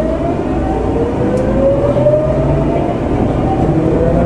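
Tokyu 9000 series commuter train heard from inside the car, accelerating: the GTO-VVVF inverter and traction motors give a tone that rises in pitch, drops back and climbs again, over a steady rumble of wheels on rail.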